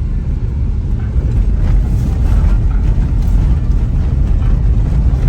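Steady low rumble of a moving car, engine and tyre noise on the road, heard from inside the vehicle.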